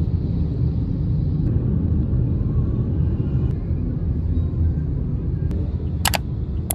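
Steady low road rumble of a moving car heard from inside the cabin, with two short sharp clicks near the end.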